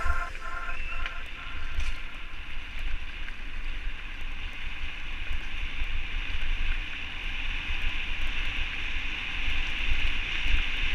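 Mountain-bike tyres rolling over a gravel track with a steady hiss, and wind buffeting the action camera's microphone in uneven low rumbles. Music fades out in the first second.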